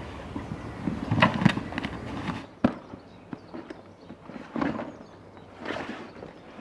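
Soft motorcycle luggage being handled and set onto the bike: fabric rustling with scattered knocks and clicks, the sharpest about two and a half seconds in.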